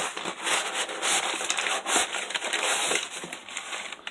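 Shipping box and its packing material being opened and rummaged through: a run of crackling, crinkling rustles with several louder surges, easing off near the end.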